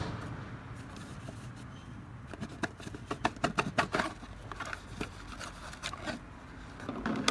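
Handling noise: a quick run of small clicks and scrapes about two seconds in, with a few more scattered later.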